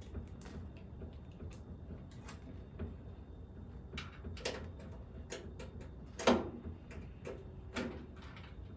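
Scattered small clicks, taps and scrapes of screws being screwed back in and a metal panel being handled on a Harvest Right freeze dryer, with one louder knock about six seconds in.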